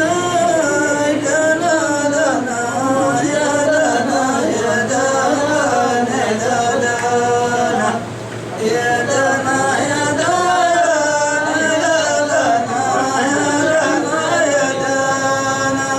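Men singing a Hadhrami dan melody in long, drawn-out, wavering lines, with a short break about halfway through.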